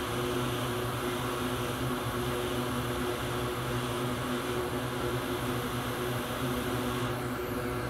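Hot air rework station blowing a steady rush of air with a low hum underneath, heating a memory chip on a graphics card to melt its solder for removal. The high hiss drops a little near the end.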